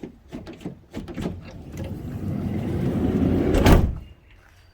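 A van's door rolling shut, a rumble building for about two and a half seconds and ending in a loud slam.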